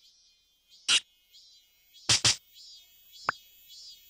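Cartoon sound effects: short pops and plucks, one about a second in, two close together near the middle, and a light click after that, over faint, evenly repeating high chirps like crickets.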